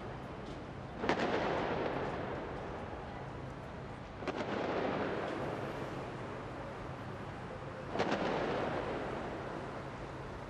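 Three fireworks shells bursting with deep booms, about three to four seconds apart. Each boom rolls away in a long echo over the city.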